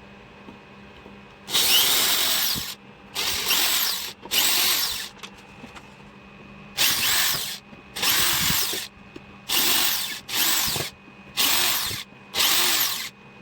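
Electric screwdriver driving out the back-panel screws of a wooden subwoofer cabinet, in about nine short runs, its motor pitch sweeping up and down within each run.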